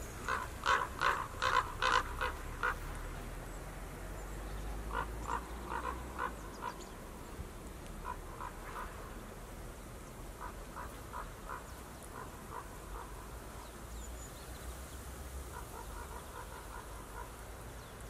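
A bird giving short nasal calls in quick runs of several notes, the loudest run near the start and fainter runs later, over a steady low wind rumble.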